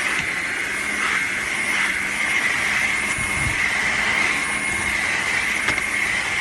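Dreame H12 Pro cordless wet-dry vacuum mop running steadily as it mops a muddy floor: a constant high whine over a low hum.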